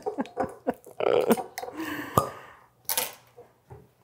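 A cork being drawn from a wine bottle with a corkscrew: short creaking clicks as the screw turns, a squeak as the cork works loose, then a sharp pop a little over two seconds in.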